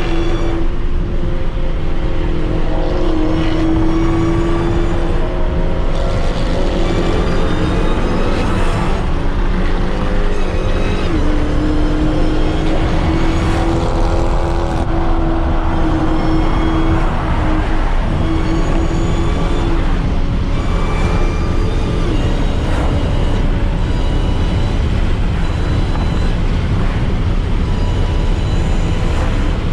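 Dodge Charger SRT Hellcat's supercharged V8 running at a steady cruise, its note holding for several seconds at a time and dipping a little now and then, over a constant low road rumble.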